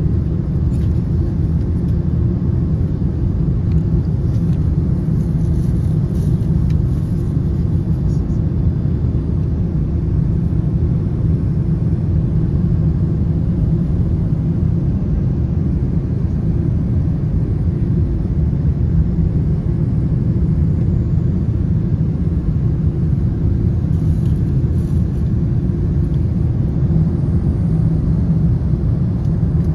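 Steady low rumble inside a jet airliner's cabin in cruise flight: the drone of its turbofan engines and the rush of air past the fuselage.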